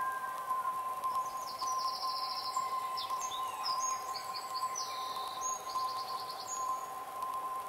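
Bird chirps and rapid high trills coming and going over a steady high-pitched hum and a faint hiss.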